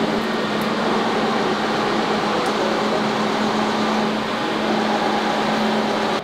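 Steady machine hum with rushing air noise and a constant low drone, unchanging throughout, cutting off abruptly at the end.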